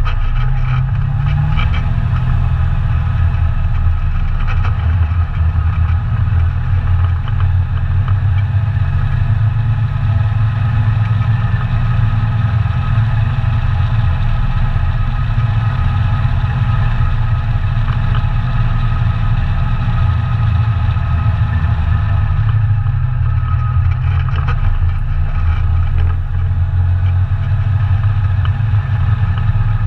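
ATV engine running steadily as the machine is ridden. Engine speed rises slightly about a second in, then drops off and picks up again between about 22 and 26 seconds.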